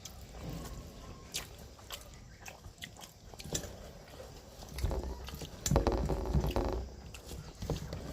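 A person chewing and biting food close to the microphone, with small wet mouth clicks. The chewing grows louder and denser about five seconds in.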